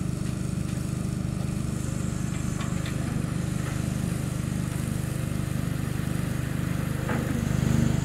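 Diesel engine of a CAT 320D L long-arm hydraulic excavator running steadily, with a few faint clinks and a brief swell in loudness near the end.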